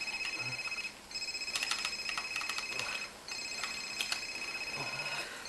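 Alarm clock ringing with a fast trilling high tone. It breaks off briefly about a second in and again about three seconds in, with a few clicks and knocks among the ringing.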